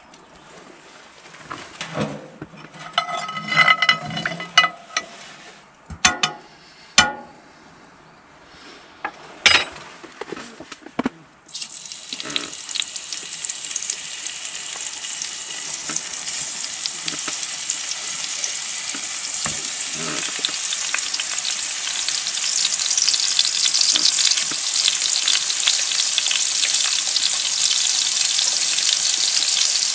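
Sausage slices sizzling in a hot frying pan on a stove. The sizzle starts suddenly about a third of the way in and grows louder as more slices go into the pan. Before it there are a few sharp knocks and handling sounds.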